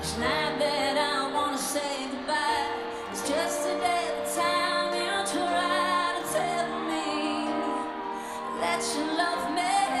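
A woman singing a pop song live into a handheld microphone over a live band.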